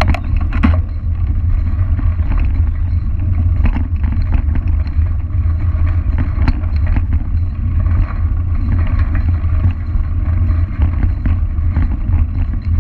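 Steady low rumble of wind on a bicycle-mounted action camera's microphone and the knobby tyre rolling over a dirt and gravel road, with scattered small clicks and rattles from the ride.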